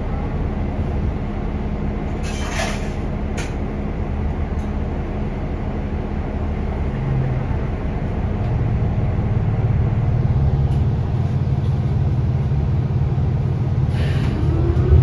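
Cabin of a 2018 New Flyer XD40 diesel city bus: the engine runs with a steady low rumble at a stop, broken by short hisses of compressed air about two and three seconds in and again near the end. Just before the end a rising engine note begins as the bus starts to pull away.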